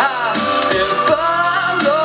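Live amplified vocal performance: a man's voice into a handheld microphone, pitch sliding up and down over a steady beat.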